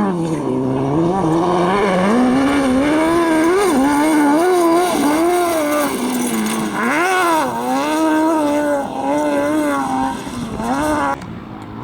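Competition vehicle's engine revving hard through a dirt slalom run, its pitch climbing and dropping again and again with throttle lifts and gear changes. It cuts off suddenly near the end.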